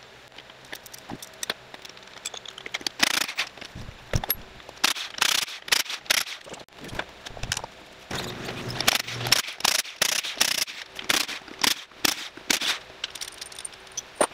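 Metal tools clicking and rattling in irregular bursts as bolts are worked out of an E153 transaxle's aluminium case.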